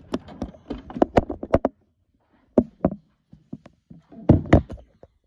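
Irregular knocks, taps and thunks of handling, close together for the first second and a half, then single knocks spaced out with short pauses.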